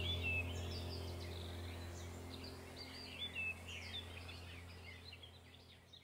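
Background soundtrack of bird chirps over a low steady drone, fading out to near silence near the end.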